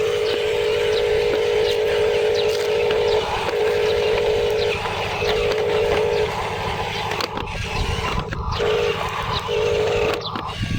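Steady whine of a small electric motor, of the kind that drives an RC model's hydraulic pump, starting and stopping irregularly in runs of about one to three seconds over a busy outdoor background.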